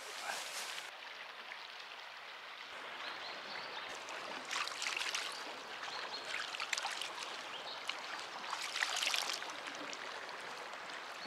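River water flowing along the bank, with hands splashing and rinsing in the shallows in irregular bursts, the strongest about four and a half, seven and nine seconds in.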